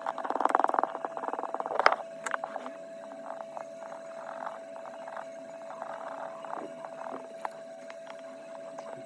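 Small hand tools clicking and scraping during repair work on a phone, over a steady electrical hum. A burst of rapid rasping scrapes and loud clicks comes in the first two seconds, followed by scattered sharp clicks and softer scraping.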